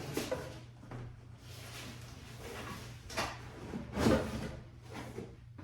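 Package being handled and opened: rustling and scraping, with three sharp knocks, the last one loudest, over a steady low hum.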